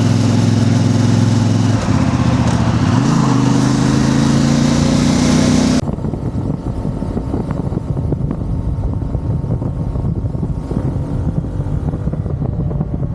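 CF Moto 450 MT's parallel-twin engine running under the rider, its pitch dropping about two seconds in and then rising again as it pulls away. About six seconds in, the sound changes suddenly to a duller, noisier rumble.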